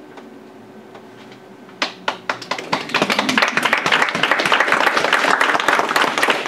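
Audience applauding: a few scattered claps about two seconds in, swelling within a second into full, steady applause.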